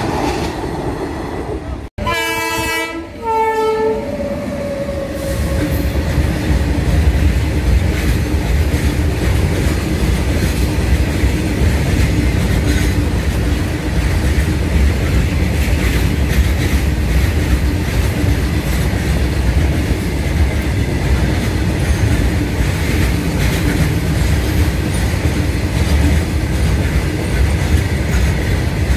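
A train horn sounds two short blasts about two seconds in, then a long freight train's wagons roll steadily past, a loud rumble with clickety-clack from the wheels on the rails.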